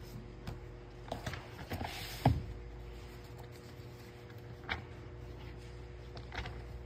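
Handling noises while a Bible passage is looked up: scattered clicks, taps and rustles, a brief rustle then one sharp knock a little over two seconds in, and a few more light clicks later, over a steady low hum.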